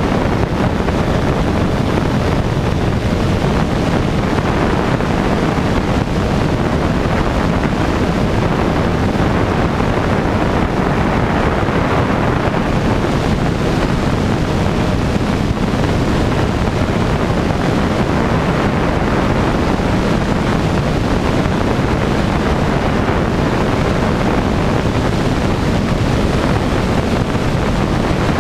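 Rainbow Aircraft Cheetah light aircraft in flight: steady wind rush on the microphone mixed with the drone of its propeller engine.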